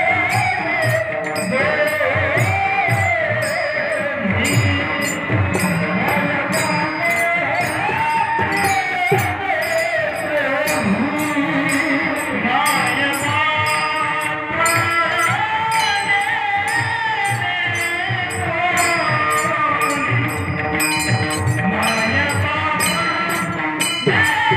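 Male voice singing a Marathi devotional bhajan with a melody that bends up and down, over jingling percussion that keeps a steady beat.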